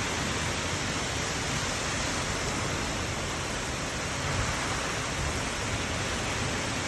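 Steady rushing of heavy rain and wind in a cyclonic storm, an even roar with no letup, with uneven low rumbling from gusts.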